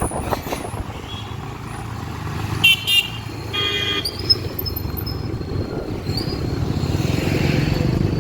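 Road traffic with vehicle horns: two short loud honks about two and a half seconds in, then a longer horn blast just after, over a steady rumble of engines and road noise.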